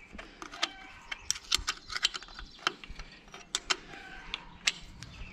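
Steel open-end spanner clicking and clinking against the bolt on a tractor's diesel fuel filter head as the bolt is worked loose: a run of irregular, sharp metal clicks.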